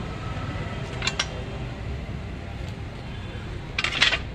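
Metallic clanks of a steel car wheel and tyre being handled against a manual steel tyre-changing stand: two quick clinks about a second in and a louder cluster of clanks near the end, over a steady low rumble.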